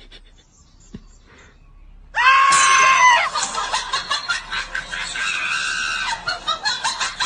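A loud scream begins about two seconds in: one held high cry, then rougher, broken shrieking that stops abruptly at the end.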